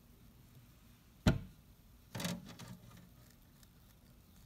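A single sharp knock about a second in, then a second, softer knock with a brief rattle about a second later.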